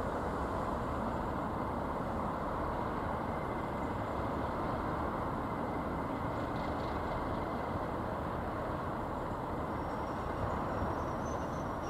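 Two Class 37 diesel-electric locomotives idling with a steady rumble and a faint thin high whistle.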